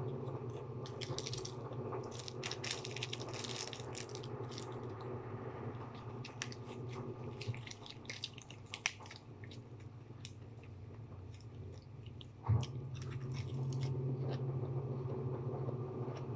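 Crisp lettuce leaves crunching as they are chewed and handled, in clusters of fine crackles that thin out after the first half. A steady low hum runs underneath, and there is a single thump about twelve seconds in.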